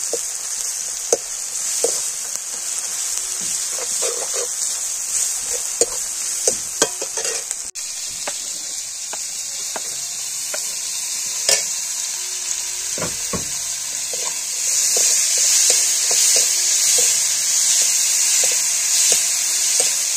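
Sliced onions sizzling in hot oil in a metal kadai, stirred with a metal ladle that scrapes and taps against the pan. Chopped tomatoes go in about halfway, and the sizzle grows louder in the second half.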